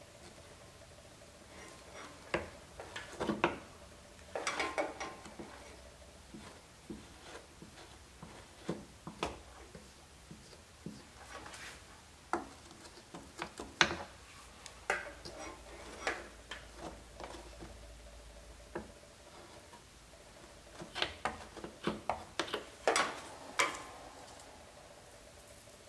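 Hot plastic-welder tip scraping and tapping against the plastic of a headlight housing as it melts the cracked mounting tab. Irregular light clicks and scrapes come in clusters, with a faint steady hum underneath at times.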